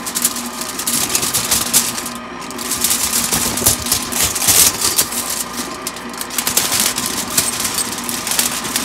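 Crumpled aluminium foil crinkling in rapid, irregular crackles as flour is shaken from it into a stand mixer's pouring chute. Underneath, the KICHOT 800W stand mixer's motor hums steadily on its lowest speed.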